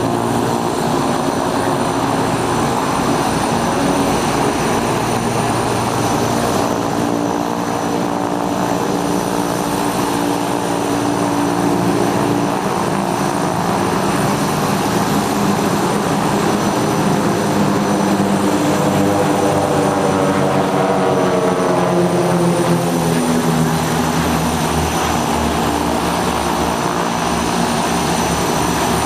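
Propeller aircraft engine droning steadily as it flies its display; about two-thirds of the way through its pitch falls as it passes.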